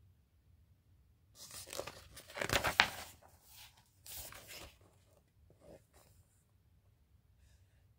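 Paper pages of a picture book being turned and handled: a rustling swish begins about a second and a half in and peaks near three seconds, then a shorter rustle around four seconds and a few faint touches after.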